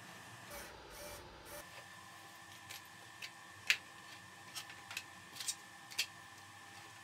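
Light clicks and taps of 3D-printed plastic airplane parts being handled and set down on the workbench: a handful of short, scattered clicks in the second half, the loudest about halfway through, over faint room tone.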